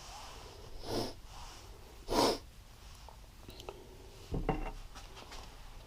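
Two short breathy hisses about a second apart, then a brief knock and rattle of parts being handled on the workbench.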